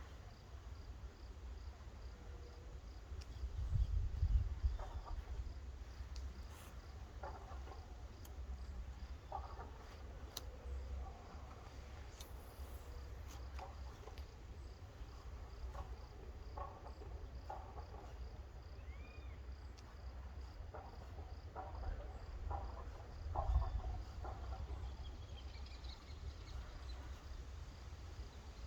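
An insect chirping in a steady, evenly spaced high pulse, over a low rumble, with two louder swells of the rumble about 4 and 23 seconds in.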